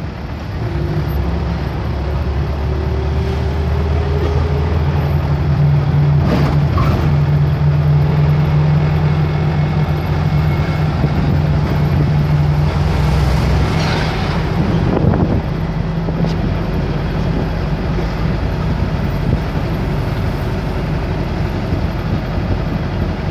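Steady engine drone and road noise heard from inside a vehicle's cabin while it drives along a highway. Brief louder rushes come about six seconds in and again around fourteen seconds, and the deepest part of the engine hum drops away around the second rush.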